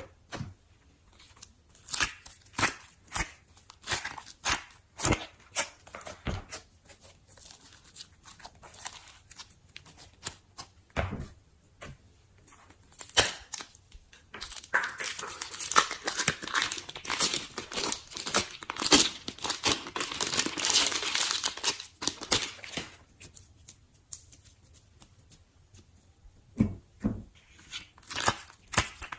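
Slime being poked, squished and stretched: a run of sticky pops and clicks, with a longer stretch of dense crackling around the middle.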